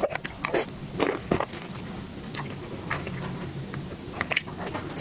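Close-miked eating of a dessert: bites and chewing with sharp, separate mouth clicks, several in the first second and a half and then lighter, sparser ones.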